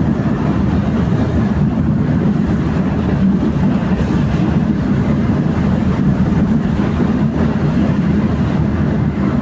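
Tram running between stops, heard from inside the car: a steady low rumble of wheels on rails.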